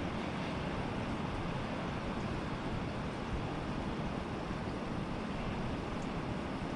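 Steady rushing noise of stormy wind and rain, even throughout, with no pitched tone or separate events in it.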